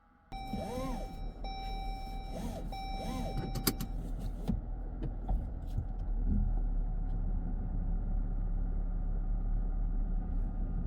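Car starting up: a steady electronic chime tone sounds for about three and a half seconds, with a brief break, over the low hum of the engine, which then runs on steadily.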